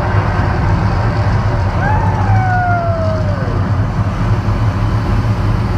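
A deep, steady rumble, with one falling whoop from a voice about two seconds in.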